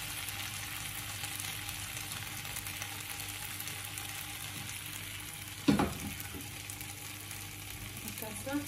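Sliced potatoes frying in oil in a pan, a steady sizzle, with one sharp knock a little past the middle.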